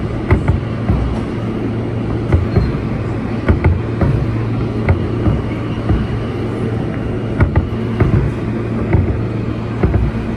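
Kawasaki R160B subway car with Alstom propulsion running through the tunnel: a steady low hum and rumble, with sharp wheel clicks over the rail joints, many of them in quick pairs.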